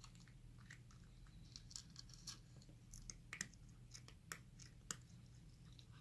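A cat chewing its food: faint, irregular crunchy clicks and smacks, with a few sharper bites a little past the middle.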